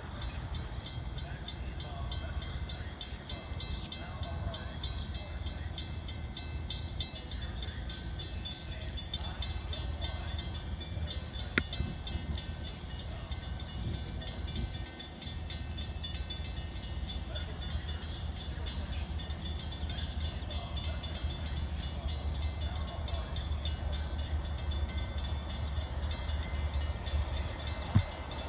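Metra commuter train approaching, a low rumble that slowly grows louder as it nears. A single sharp click about a third of the way in.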